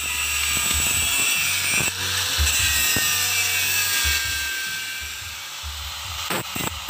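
Angle grinder grinding down fresh weld beads on an aluminium engine oil pan: a steady high-pitched whine that wavers as the disc bites into the metal.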